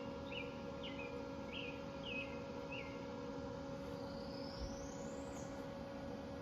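A bird calls a series of short, falling chirps, about two a second, stopping about three seconds in, then gives one whistle that rises in pitch. A steady hum runs underneath throughout.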